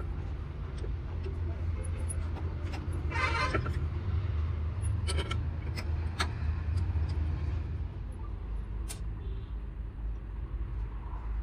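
An engine running steadily with a low hum, with a few short clicks and knocks over it and a brief clatter about three seconds in.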